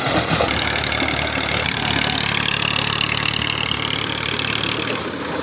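Massey Ferguson 240 tractor's three-cylinder diesel engine running steadily under load, pulling a rotavator that churns through dry soil, heard close up.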